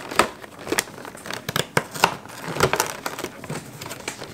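Cardboard packaging of an advent calendar compartment being handled and crinkled as an item is worked out of it, with irregular sharp clicks and rustles.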